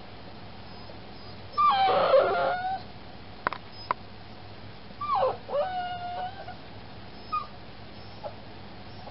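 Freshly spayed puppy whining in two drawn-out bouts of high cries that bend up and down in pitch, the first about a second and a half in and the second about five seconds in, then two short whimpers near the end. Two sharp clicks fall between the bouts.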